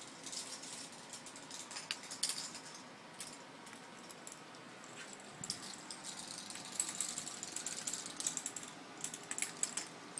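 Small plastic K'Nex pieces being handled, clicking and clattering irregularly.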